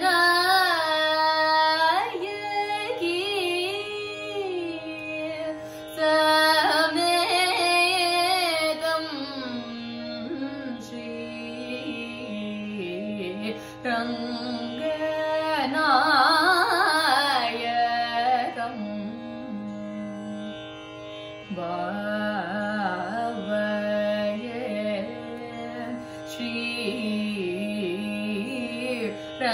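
Woman singing Carnatic classical music solo, in phrases with short breaks, her long held notes bent with sliding, wavering ornaments over a steady drone.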